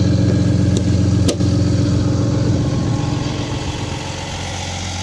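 Diesel engine of a Peterbilt 337 truck idling steadily. About a second in there is a single sharp click as the rubber hood latch is snapped into place.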